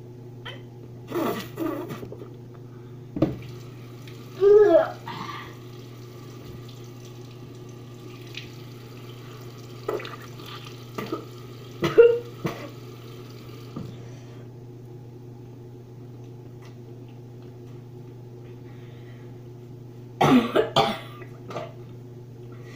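A boy coughing in short bursts with a mouthful of curry, including a tight cluster of coughs near the end, over a steady low hum.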